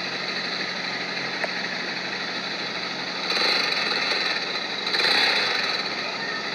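An engine running steadily, with two louder swells of noise about three and five seconds in.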